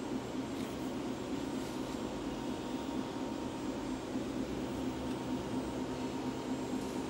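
Steady mechanical hum: a low drone with a fainter higher tone above it, over a hiss.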